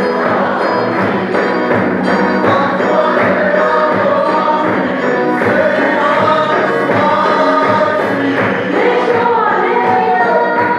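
A crowd singing a gospel hymn together to a steady beat on a large drum.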